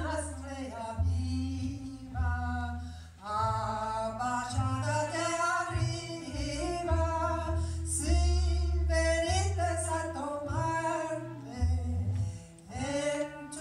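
A woman singing a melody into a microphone, accompanied by clarinet and double bass, with the bass sounding sustained low notes under the voice.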